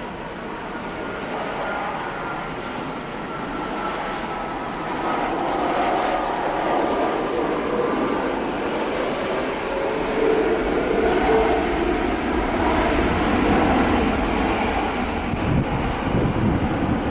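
Airbus A330-300 jet airliner landing: a steady jet roar with a faint whine that falls in pitch as it passes. Touchdown comes about eight seconds in, and the roar grows louder and deeper as it rolls out on the runway.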